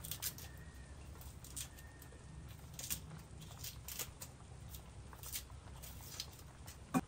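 Small knife peeling red onions by hand: soft, irregular crackles and snips as the papery skin is cut and pulled away, with one sharper knock near the end.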